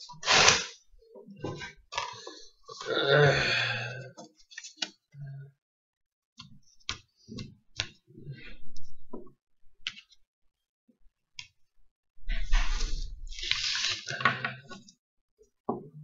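Paper packaging being crinkled, torn and unfolded by hand in several rustling bursts, with light clicks and knocks in between as small figurines are set down on a table.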